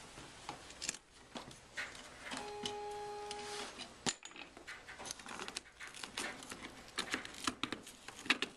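Scattered clicks and knocks of Folbot Edisto folding-kayak frame parts being handled and fitted into place, with a short steady tone lasting about a second near the middle.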